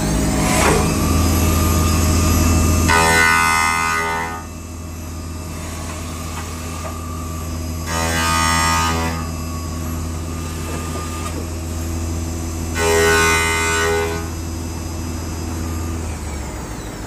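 CNC milling machine running with a face-mill cutter on the spindle: a steady low hum, broken three times, about every five seconds, by a brief whine of several tones at once. The hum drops away near the end.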